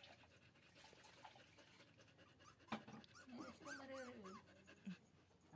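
Puppies whimpering faintly: a soft knock, then a quick run of short high whines that rise and fall, about three to four seconds in.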